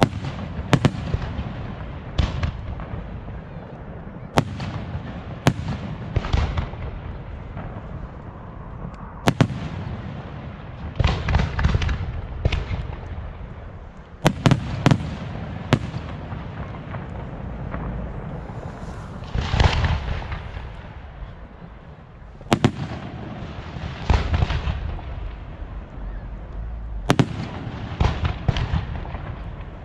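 Aerial fireworks display: shells bursting in sharp bangs at uneven intervals, some in quick clusters of crackling reports, over a steady rumble and echo.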